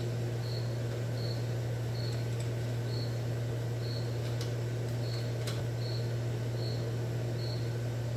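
A cricket chirping, a short high chirp a little more often than once a second, over a steady low hum. There are two faint clicks about halfway through.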